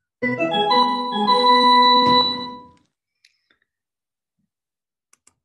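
Short keyboard jingle from a children's reading app, played on clicking to reveal a riddle's clue. A quick run of rising notes ends on a held chord that fades after about two and a half seconds, followed by a few faint mouse clicks.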